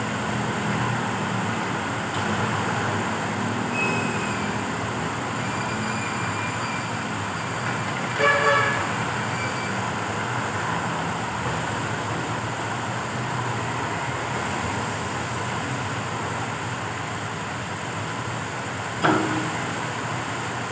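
Steady background noise with a faint low hum, a brief horn-like toot about eight seconds in, and a sharp click near the end.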